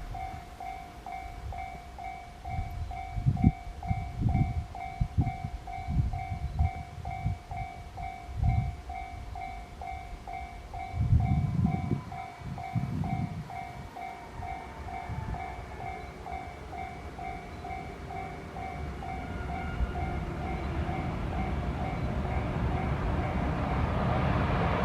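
Japanese level-crossing warning bell ringing, a steady repeating two-tone ding about twice a second. A few low thumps come in the first half, and in the second half a rumble grows steadily louder as an EH500 electric locomotive hauling a container freight train approaches the crossing.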